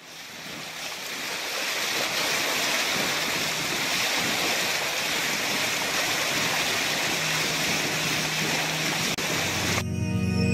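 Steady rushing water of a small trimaran's wake churning astern, fading in over the first couple of seconds. About ten seconds in it cuts off suddenly and music takes over.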